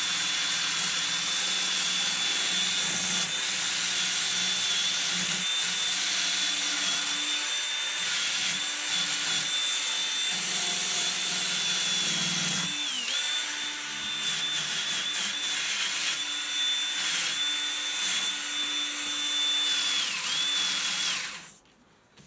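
Cordless drill spinning a sanding disc against an aluminium motorcycle fork leg: a steady high motor whine over a rasping sanding hiss. The pitch dips briefly twice as the disc is pressed on, and the drill stops about a second before the end.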